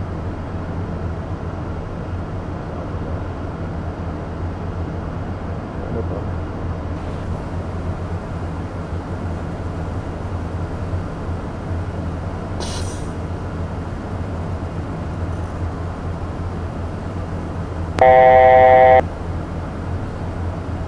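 Steady cockpit drone of a Beechcraft Premier I business jet in climb, with a low hum. About eighteen seconds in, a loud electronic tone sounds for about a second.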